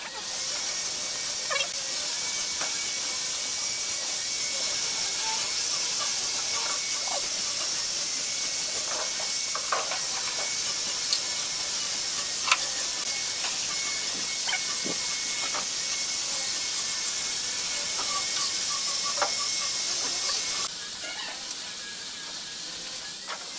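A steady hiss with a faint high tone that cuts off suddenly near the end. Over it come a few faint clicks and taps as glue is spread with a wooden spatula onto the edges of pine boards.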